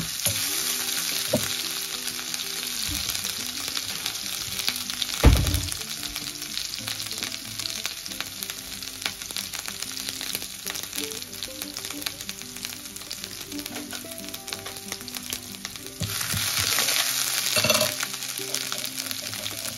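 Hot oil sizzling and crackling as a tempering of dried red chillies, bay leaf, fenugreek and ginger-chilli paste fries in a stainless steel pan. There is a single loud knock about five seconds in, and the sizzle swells louder near the end.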